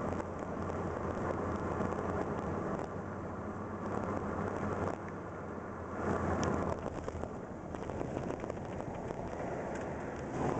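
Car driving, with steady road and engine noise heard from inside the cabin and a few light ticks now and then.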